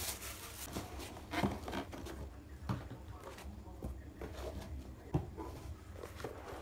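Handling of a cardboard shoebox and a pair of leather shoes: a few light knocks and a rustle of tissue paper as the shoes are lifted out of the box, over a steady low room hum.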